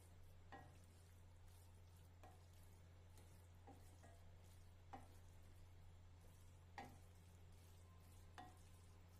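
A spatula stirring chopped okra in masala in a stainless steel kadai: six soft, irregular taps and scrapes against the pan, the loudest about seven seconds in, over a low steady hum.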